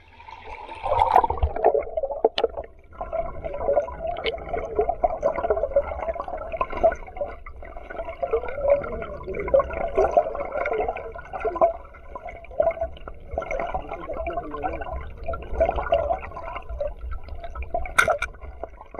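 Stream water gurgling and bubbling around a camera held underwater, starting about a second in. There is a sharp click near the end.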